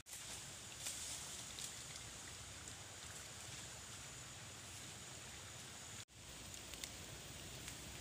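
Steady outdoor background hiss with faint scattered ticks. It cuts out for an instant about six seconds in.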